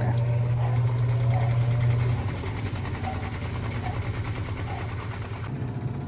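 Rovsun portable washing machine's motor spinning the drum on its dry cycle: a steady low hum with a fast even pulsing, which drops in level about two seconds in.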